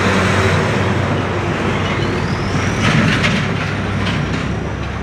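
Heavy diesel trucks passing close, with a steady engine rumble and tyre and road noise. A thin rising whine comes about two seconds in, then a spell of rattling clatter.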